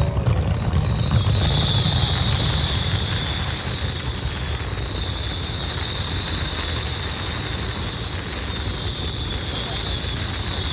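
Fireworks finale: a dense, continuous barrage of booms with a steady high hiss over it.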